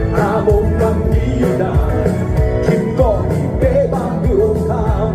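A song playing: a melody line sung or played over a band with a steady drum beat.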